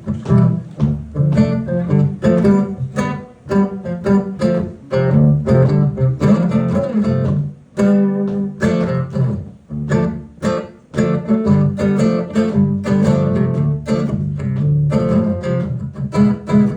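Instrumental break in a live pop song: rhythmic strummed acoustic guitar over a steady low bass line, no singing.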